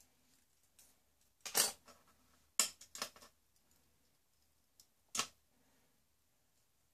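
Short scratchy rustles of a comb and fingers working through long hair close to the microphone: one burst about a second and a half in, a cluster of several quick scrapes around three seconds, and one more a little after five seconds.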